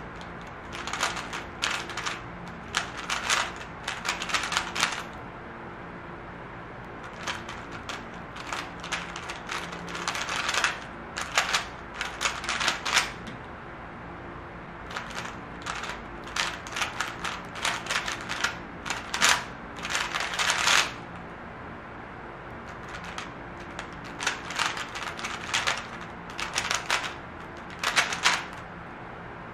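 MoYu WeiLong V10 AI smart 3x3 speed cube being turned fast: rapid runs of plastic clicking and clacking from the layer turns, in bursts of a few seconds with short pauses between.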